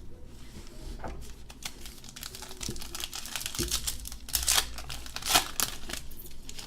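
Plastic wrapper of a trading-card pack crinkling as the pack is opened and handled, an irregular crackle with a few louder crinkles in the second half.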